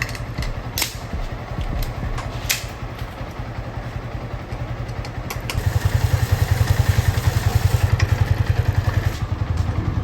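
Motorcycle engine running with a steady low beat, growing louder from about halfway in. A few sharp clacks sound in the first few seconds.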